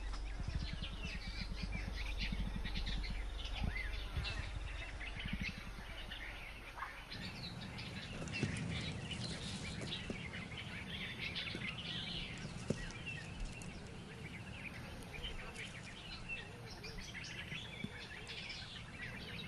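Bush ambience: many small birds chirping and calling, over a low rumble that eases about seven seconds in.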